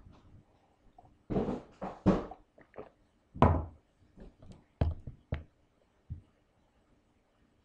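A few irregular thumps and sharp clicks: handling noise at a desk and a computer mouse being clicked, the louder thumps in the first half and lighter clicks after, ending about six seconds in.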